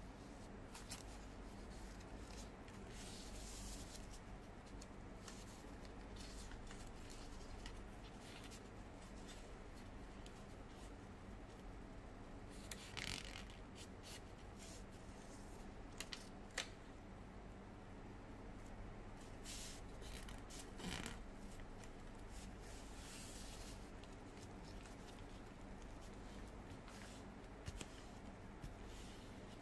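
A sheet of origami paper being folded and creased by hand: faint, scattered rustles and crinkles, with a few sharper crisp snaps and scrapes as fingers press and run along the folds, over a low steady hum.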